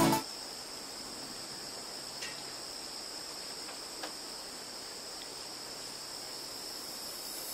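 Steady high-pitched insect drone, with a couple of faint ticks about two and four seconds in.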